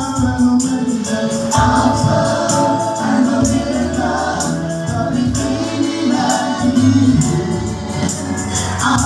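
Gospel praise music: a choir singing with a tambourine shaken on a steady beat.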